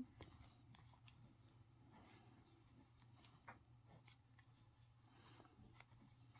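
Faint scratchy ticks and rustling of a crochet hook being worked through yarn stitches during a decrease, in a near-silent room with a low steady hum.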